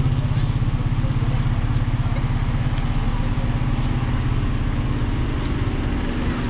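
A small engine idling: a steady low drone with a fast, even pulse.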